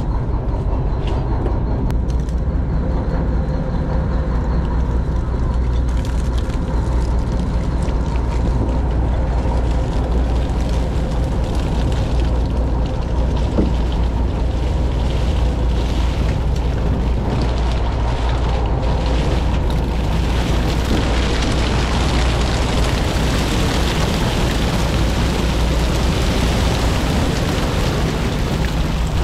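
A boat engine running steadily with a deep, even drone. A rushing noise grows louder over the second half.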